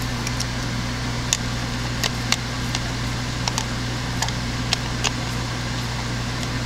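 Steady low hum of shop ventilation, with a dozen or so light, sharp clicks of a screwdriver snugging down the ignition coil's bracket screws.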